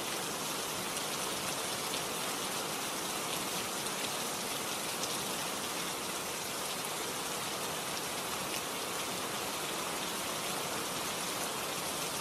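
Steady even hiss with a fine crackle, unchanging throughout; no separate glove snaps or wrapper rustles stand out above it.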